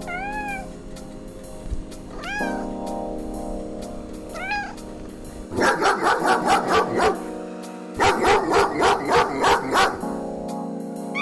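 Domestic cat meowing three times over background music with sustained notes, followed by two runs of quick repeated dog barks, about five a second.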